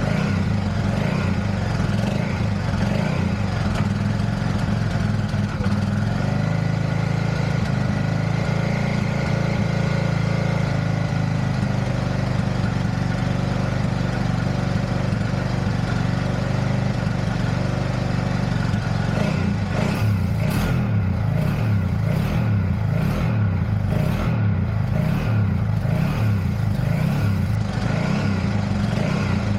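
BMW F650GS Dakar's single-cylinder engine running steadily, then turning uneven and stuttering about two-thirds of the way in: the recurring ignition fault that the owner blames for its misbehaving.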